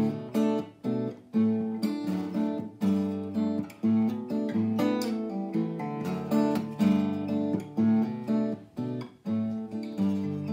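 Background music: acoustic guitar strumming chords, each strum sounding sharply and fading.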